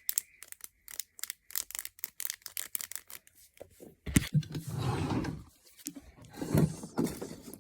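A fidget toy being worked by hand, giving a quick, irregular run of sharp clicks for about four seconds. Then comes a thump and louder rustling handling noise as it is moved about.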